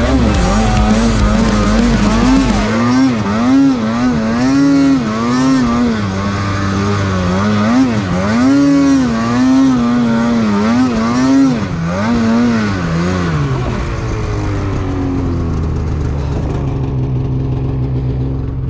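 Polaris snowmobile engine revving up and down with repeated throttle blips while it is ridden through deep powder, the pitch rising and falling about once a second. About 13 seconds in the revs fall away and it settles to a steady idle as the sled stops.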